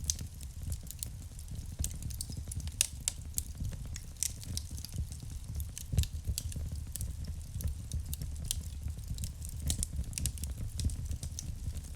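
Wood fire burning in a fireplace: irregular sharp crackles and pops over a steady low rumble of the flames, with a few louder pops, the loudest about six seconds in.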